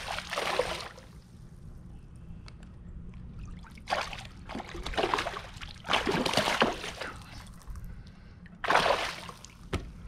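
Water splashing in about four short bursts as a hooked smallmouth bass thrashes at the surface while it is landed beside a float tube.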